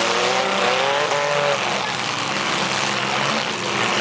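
Demolition derby car engines revving hard in the mud arena, one rising in pitch for about the first second and a half, over a steady din of the other cars.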